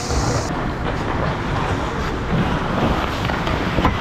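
Ice hockey rink sounds: skate blades scraping and carving the ice around the goal crease over a steady noisy rush, with a few sharp knocks, the loudest near the end.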